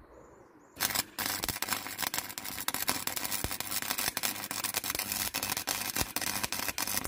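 MIG welder arc crackling as a steel support is welded onto a steel frame. It starts about a second in with a short burst and a brief stop, then crackles steadily on.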